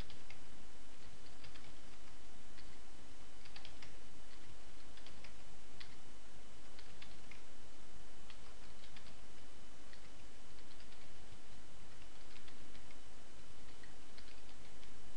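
Computer keyboard keys and mouse buttons clicking at an irregular pace, over a steady low background hum.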